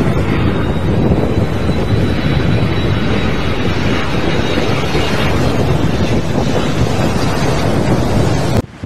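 Strong wind buffeting the microphone: a loud, steady rumbling rush, with a faint thin high whine in the first few seconds, as a twin-engine jetliner lands in a gusty crosswind. The noise cuts off suddenly near the end.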